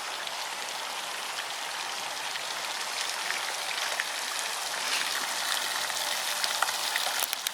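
Fountain water splashing: a steady rushing hiss of falling water with small scattered patters, a little louder in the second half.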